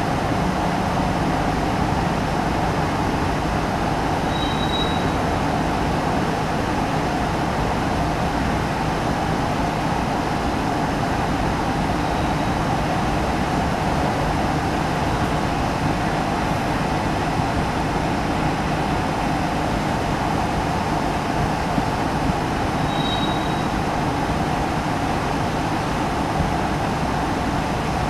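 Slow-moving BNSF grain train of covered hopper cars rolling past with a steady rumble. Two brief high wheel squeals come through, one a few seconds in and one late on.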